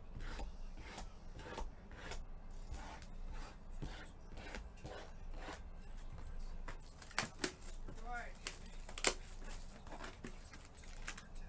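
Trading-card boxes and packs being opened and handled by hand: a run of light clicks, rustles and tearing of cardboard and wrapper, with a few sharper snaps about seven and nine seconds in.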